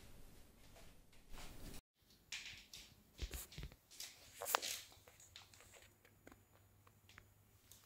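Faint, scattered clicks and knocks of things being handled, the sharpest about four and a half seconds in, with a brief dead gap near two seconds.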